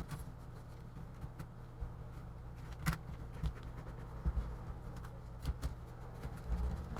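Light clicks and taps of a replacement laptop keyboard being set into its plastic palm rest, the sharpest about three seconds in, over a steady low hum.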